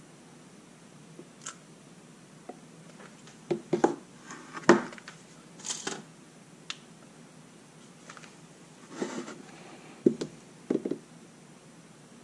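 Scattered knocks, taps and scrapes of the assembled box's panels being handled, turned over and set down on a cutting mat, with a hot glue gun being handled alongside. The loudest knocks come about five seconds in and again around ten to eleven seconds.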